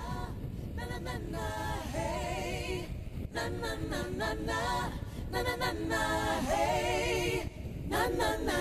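A song on the soundtrack: a singing voice in phrases, some notes held with vibrato.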